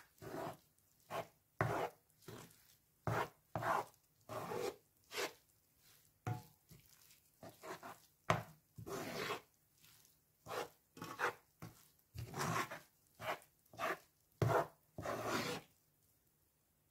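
A wooden spoon scraping and stirring damp, sugary couscous around a non-stick frying pan, in irregular strokes about one or two a second that stop near the end.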